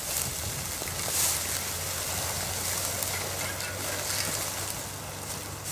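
Steady low hum of distant road traffic, with soft rustling footsteps through dry grass.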